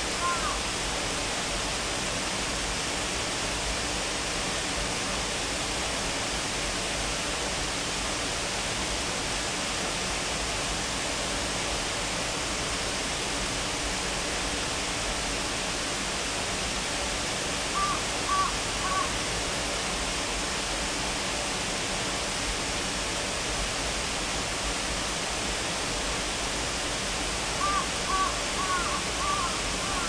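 Steady rush of Shiraito Falls, many thin cascades spilling down a cliff into a shallow rocky stream. A bird gives a few short calls about eighteen seconds in and again near the end.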